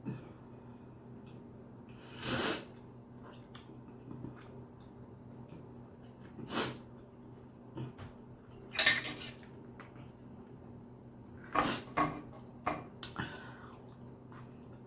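Eating sounds of a toothless person chewing steak with bare gums: short wet mouth and breath noises every few seconds, clustering near the end.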